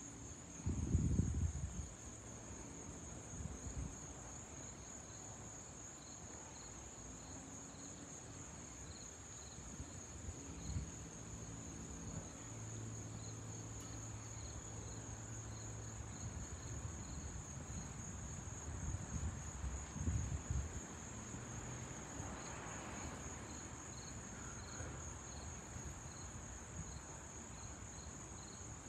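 Insects chirring steadily in a high, finely pulsing trill, with a second, lower chirp repeating about twice a second. A few low bumps come about a second in and again around twenty seconds in.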